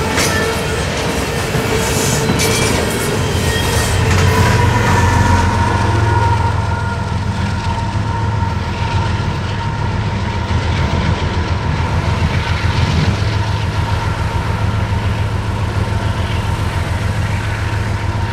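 Freight train of loaded steel-coil cars passing, its wheels clacking over the rail joints for the first few seconds. After the last cars go by, a steady low rumble carries on.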